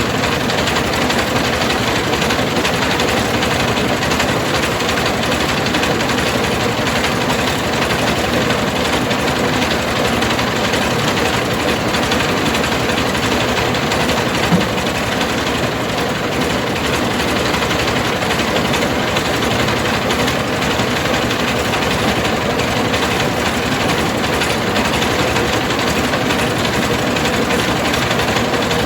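Engine-driven mobile rice mill running steadily: a loud, continuous machine noise with a light steady hum and one brief click about halfway through.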